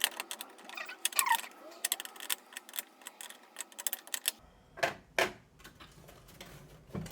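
Quick, irregular clicking and rattling of small metal parts: CPU cooler mounting standoffs being screwed by hand into a motherboard backplate, with a couple of louder handling knocks about five seconds in.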